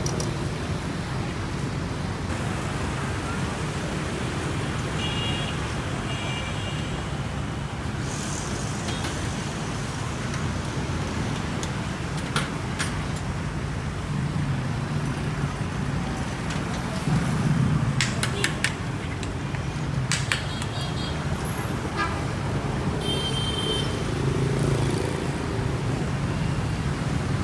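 Steady street traffic running past, with short horn toots about five seconds in and again near the end, and a few sharp clicks in between.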